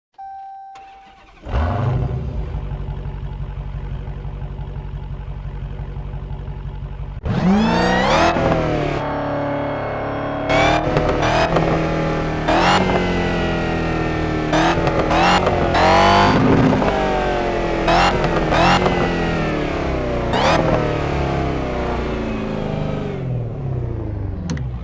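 Muscle car engine starting up about a second and a half in, after a brief tone, and idling steadily. From about seven seconds on it is revved again and again, each rev rising sharply in pitch and falling back to idle.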